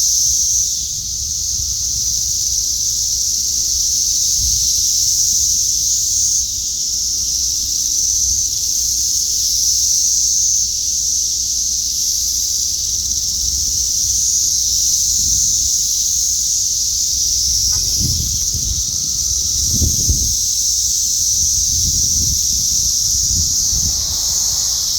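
Dense chorus of 17-year periodical cicadas: a loud, unbroken, high-pitched drone.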